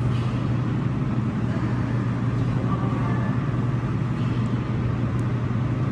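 Steady low machine hum over an even hiss: the background drone of an indoor swimming pool room.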